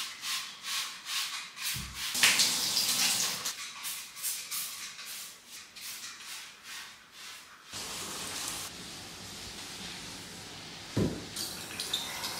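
Quick, repeated hissing strokes of bathroom cleaning at a glass shower, then, about eight seconds in, a steady rush of water from a handheld shower wand into a freestanding bathtub, with a single knock near the end.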